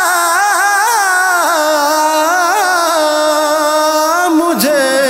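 Male voice singing a naat: one long, wavering melodic line without words, settling on a held note near the end.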